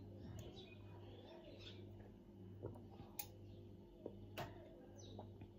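A few faint clicks and taps of a metal spoon and small medicine bottle being handled, over a low steady hum.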